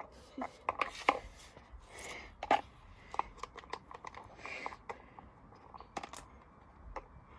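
Irregular sharp clicks and knocks, about a dozen, with soft rustling between them.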